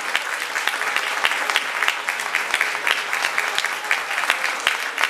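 A roomful of guests applauding, many hands clapping at once in a dense, steady patter.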